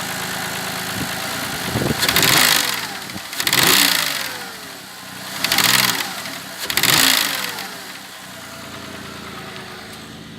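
Audi A6 C6 engine idling, then revved four times in quick blips, each time settling back to idle. The engine is being revved to check for the knock from the intake manifold flaps.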